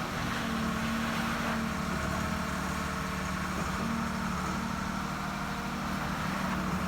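Excavator's diesel engine running steadily as the machine digs and moves dirt.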